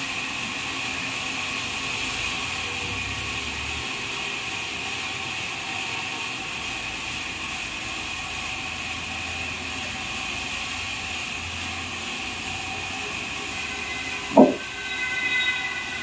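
A horizontal band sawmill running steadily, its motor, belt-driven wheels and blade giving an even hum with a constant high whine. About 14 seconds in there is one sharp, loud knock.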